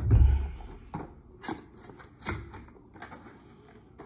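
A low thump, then scattered sharp clicks and knocks of small objects being handled on a work surface.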